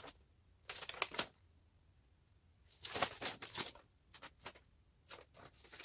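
Folded paper instruction leaflets rustling and crinkling as they are handled and unfolded: two longer rustles about one and three seconds in, then a few short crackles.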